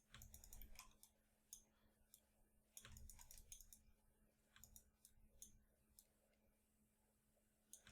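Faint, scattered clicks of a computer mouse, in small clusters at the start, around three seconds in and around five seconds in, over a faint steady electrical hum.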